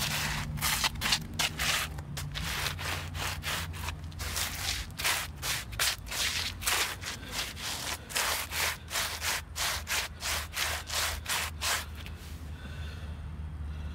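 Worn Sperry Top-Sider boat shoes scuffing and scraping their soles across asphalt in quick repeated strokes, about two to three a second, that stop about twelve seconds in.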